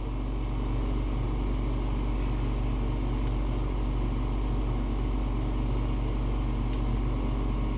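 Steady low machine hum made of several even low tones, with one faint click near the end.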